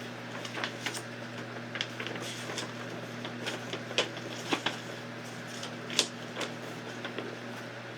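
Large paper poster rustling and crinkling as it is handled, in scattered short crackles with sharper snaps about four and six seconds in, over the steady hum of a room fan.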